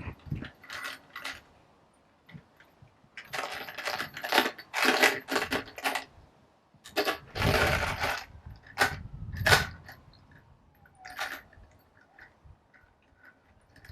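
Small metal drill bits clinking and rattling as one is picked out of a bit case: clusters of sharp clicks, with a rougher rattle about halfway through.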